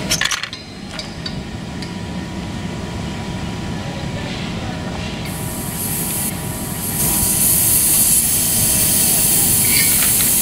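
Propane gas hissing from a cylinder's valve as it is opened with a tool during a gravity-feed transfer. The hiss starts about halfway through and grows louder about two-thirds of the way in, after a few short metal clicks at the start.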